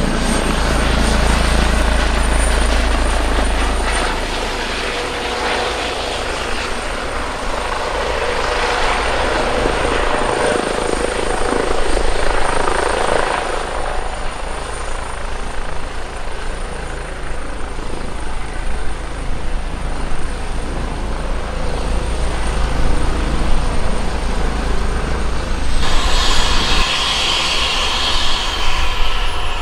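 Eurocopter EC135 T3 (Airbus H135) twin-turbine helicopter coming in to land, then running on the ground with its main rotor turning. A steady high turbine whine sits over the rotor beat throughout, and the whine starts to fall right at the end.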